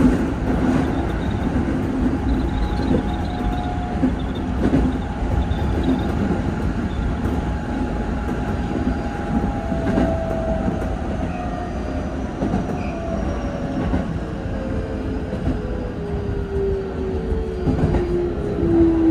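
Keikyu 1500-series electric train running on rails and slowing for a station stop: the traction motor whine falls steadily in pitch as the train brakes. Wheels click now and then over rail joints under the steady running noise.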